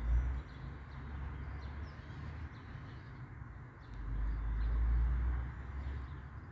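Outdoor ambience: a low rumble that swells twice, briefly at the start and again for about two seconds past the middle, with faint bird chirps over it.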